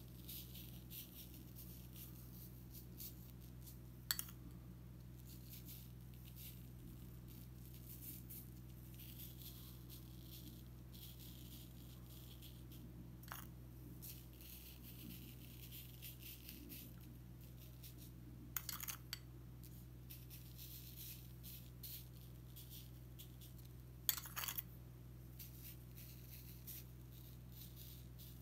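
Faint rustle of coloured sand sprinkled from a metal spoon onto a sand-painting board, with a few light clicks of the spoon against a ceramic bowl, over a steady low hum.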